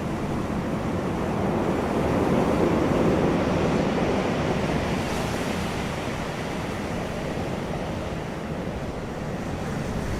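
Ocean surf washing in: a steady rushing of water, with one wave swelling about two seconds in and then slowly subsiding.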